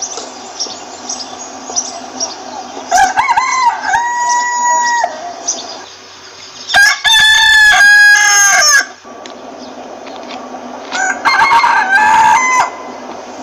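Rooster crowing: three long crows about two seconds each, spaced a few seconds apart. Faint hen clucking between them.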